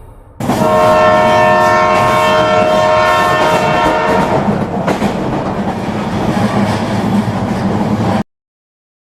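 Train horn sounding a steady chord for about four seconds over the noise of a moving train, then the train running on alone. It cuts off abruptly near the end, leaving dead silence.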